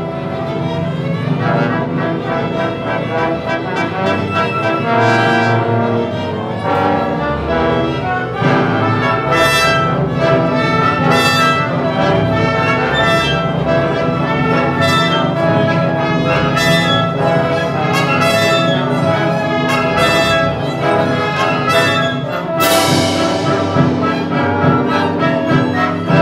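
Community orchestra playing loudly, with the brass section prominent, and a crash from the percussion near the end.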